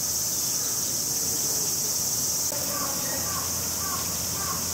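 Steady, high-pitched drone of a summer cicada chorus, with faint voices in the background in the second half.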